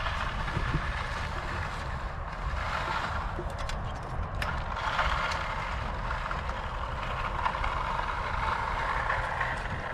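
Bull float drawn across the wet concrete of a fresh pad, a rough swishing that swells and fades a few times, over a steady low rumble.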